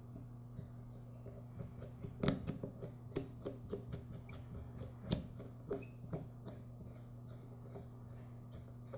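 Light metal clicks and scrapes of a flat-blade screwdriver turning the main jet into a lawn mower carburetor's emulsion tube, irregular small ticks with two louder clicks a couple of seconds in and near the middle.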